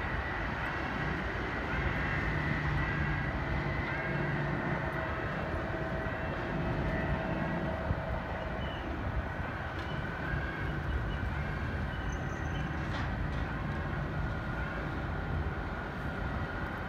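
Jet airliner engines running with a steady rumble and a faint whine, holding an even level with no spool-up or fade.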